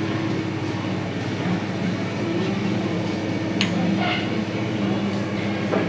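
A steady low mechanical hum with faint voices in the background, and one sharp click a little over halfway through.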